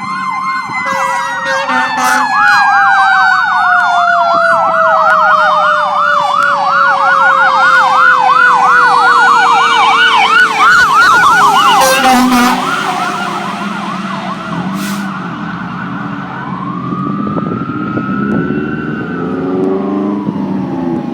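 Fire apparatus sirens sounding on an emergency response: a fast electronic yelp over a long, slowly falling siren tone that winds down. Both stop partway through, and a wail rises and falls again near the end.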